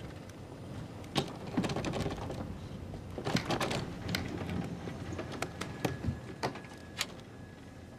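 An airliner lavatory's folding door being handled, pushed shut and latched: a series of sharp clicks and knocks, bunched about three seconds in and again near the end, over a steady low cabin drone.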